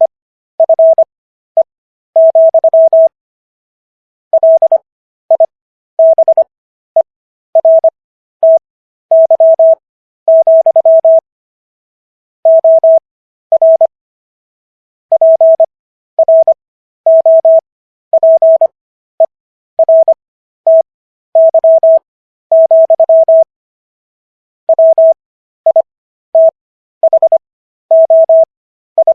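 Computer-generated Morse code: a single steady tone near 650 Hz keyed on and off in short dots and longer dashes, with longer pauses between words. It is sent at 15 words per minute with Farnsworth spacing and spells out the text of the US Constitution's Fifth Amendment.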